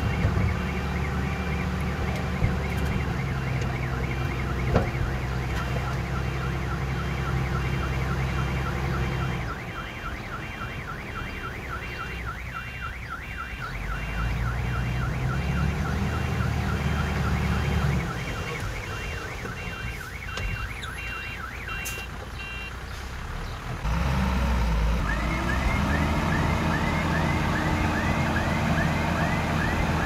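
Komatsu D20P mini crawler bulldozer working, its diesel engine changing load, easing off about ten seconds in and picking up again sharply near the end. Over the engine runs a fast, evenly repeated high squeaking and chirping.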